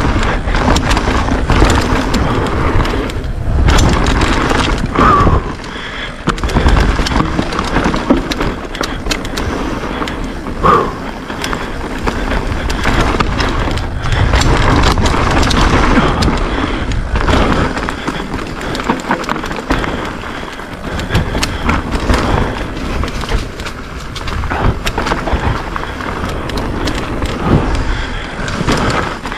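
Mountain bike ridden fast down a rough downhill trail: steady wind noise on the microphone, with constant rattling and frequent sharp knocks as the tyres hit rocks and roots.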